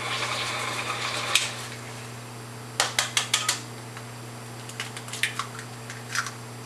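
An egg tapped about five times in quick succession against the rim of a stainless-steel stand-mixer bowl to crack it, followed by lighter clicks as the shell is broken open. A steady low hum runs underneath, and a rushing noise stops with a click about a second and a half in.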